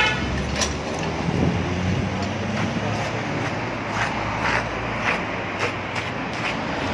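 Steady low rumble of vehicle engines and road traffic, with a handful of short sharp clicks scattered through it.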